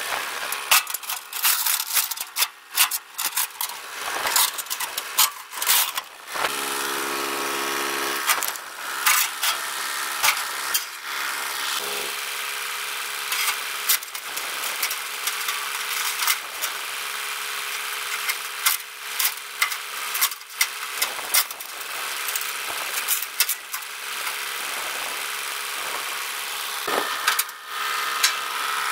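Chain links clinking and metal clanking in many irregular sharp knocks, over a steady hum.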